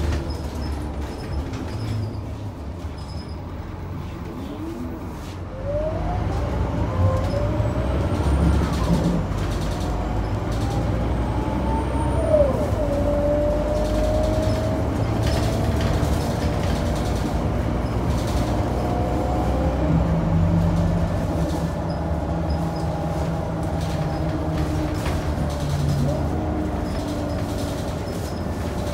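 Scania DC9 nine-litre six-cylinder diesel of a Scania K94UB bus with a ZF five-speed automatic. It runs quietly at first, then pulls away about six seconds in, its pitch rising and stepping through the gears. There is a single sharp knock a little after twelve seconds.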